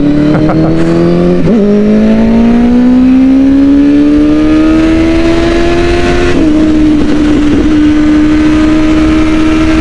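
Kawasaki ZX-10 1000 cc four-cylinder sport-bike engine under hard acceleration, its note climbing steadily for about five seconds. It then eases off slightly and holds a steady note at speed, over a constant low rush.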